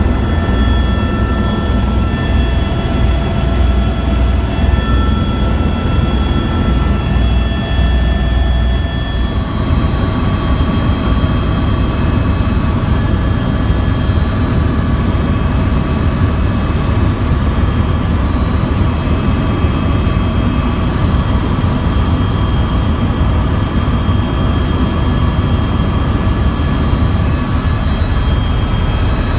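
Tour helicopter's turbine engine and rotor running steadily: a loud low drone with several high whining tones. The whine changes pitch about nine and a half seconds in.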